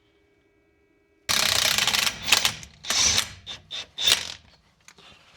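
Ratchet wrench clicking hard for about a second, then several shorter bursts of ratcheting and metal clatter that die away.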